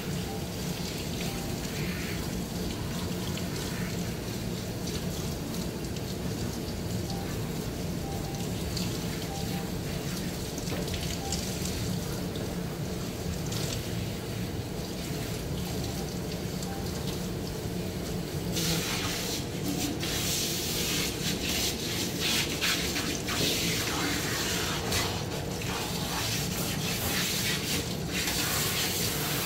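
Water running from a hand shower and splashing in a stainless steel sink as a wet dog is rinsed: a steady hiss that gets louder and brighter about 18 seconds in, with irregular splashing.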